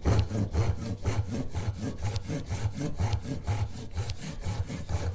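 Gyokucho Japanese saw, fine-tooth side, sawing a narrow slot along the grain of a hardwood pen blank in quick, even back-and-forth strokes, about two to three a second.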